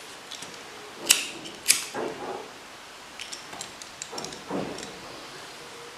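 Two sharp clicks, a little over a second in and about half a second apart, then faint scattered ticks and rustles of small metal parts and cord being handled.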